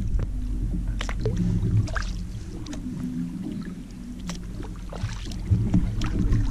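Kayak paddling: a double-bladed paddle dipping and splashing, with water dripping off the blades, over a steady low rumble of water and wind against the kayak.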